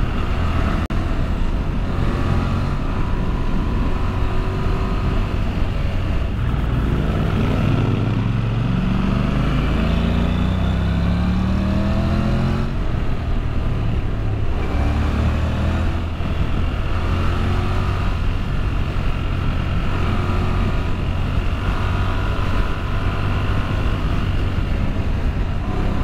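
Honda NC750X parallel-twin engine under way, its pitch climbing several times under acceleration and dropping back between bends, over steady wind rush at riding speed.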